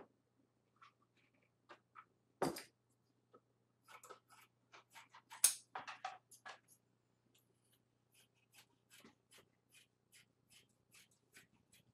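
Scissors snipping through a sheet of Worbla thermoplastic, a long run of short, crisp cuts that come thick around the middle and in a more even series later on. A single louder knock sounds about two and a half seconds in.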